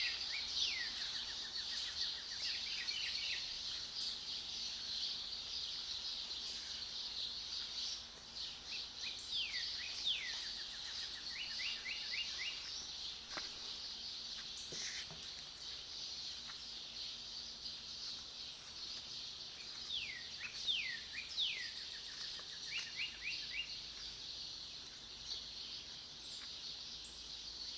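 Many birds singing and chirping together in the morning. One bird among them repeats the same song about every ten seconds: a few notes sliding down, then a quick run of short notes.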